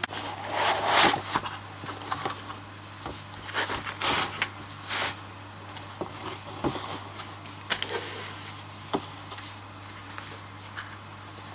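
Irregular rustling, scraping and sharp clicks of packaging and a tool being handled by hand during unboxing, busiest in the first five seconds, over a steady low hum.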